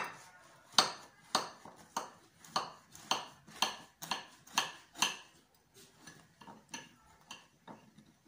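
Kitchen knife sawing through the baked crust of a homemade loaf cake: a rasping scrape on each stroke, about two a second, fainter and sparser after about five seconds.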